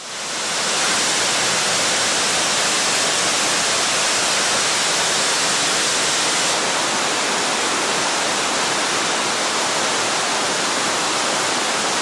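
Waterfall pouring down a rock face into a plunge pool: a loud, steady rush of falling water that rises in over the first second.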